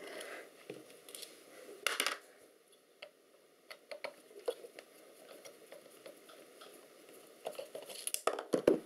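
Screwdriver working the motor's mounting screws on a missile release actuator, metal on metal: scattered light clicks and scrapes, with a louder clatter about two seconds in and more knocks near the end. The screws are already loose.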